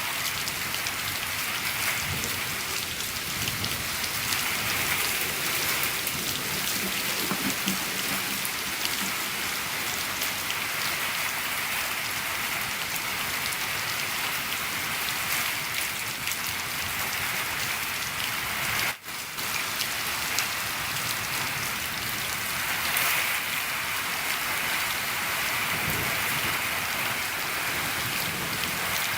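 Steady rain falling on a shed roof, an even patter that dips out for an instant about two-thirds of the way through.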